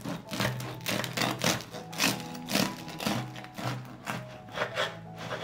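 Bread knife sawing through the crisp crust of a freshly baked white wheat loaf, giving a run of irregular crackles and crunches, over background music.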